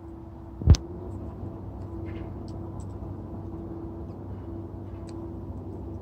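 A single loud, sharp bang under a second in, over a steady low hum with a faint high clicking now and then.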